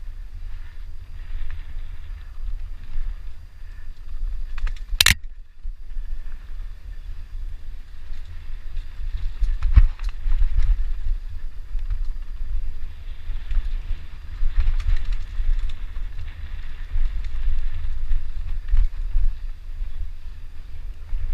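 Downhill mountain bike riding over a rough trail: a constant low rumble of wind and trail buffeting on the mounted camera, with scattered rattles and knocks from the bike and one sharp crack about five seconds in.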